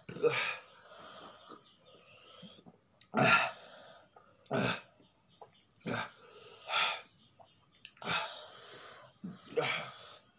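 Sharp, hissing breaths drawn and blown through the mouth every second or so, the panting of people burning from eating raw green chilies.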